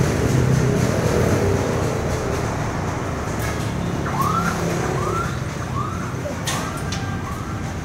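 Puppy whining in short rising-and-falling squeaks, about one every two-thirds of a second from halfway through, over a steady background rumble.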